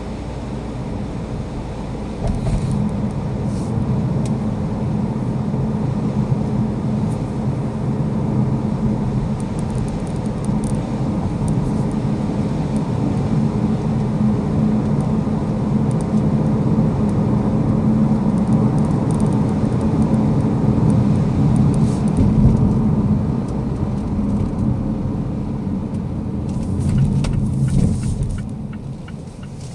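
Mazda CX-3 driving, heard from inside the cabin: a steady low rumble of engine and tyres on a wet road. It gets louder about two seconds in and eases near the end as the car slows.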